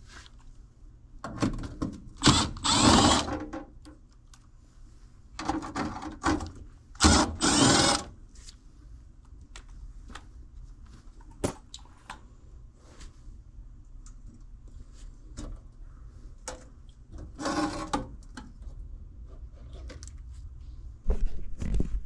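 Cordless drill spinning in four short runs, backing screws out of the sheet-metal cover of a PTAC air conditioner, with small clicks and handling noises between. A heavier knock near the end as the panel comes loose.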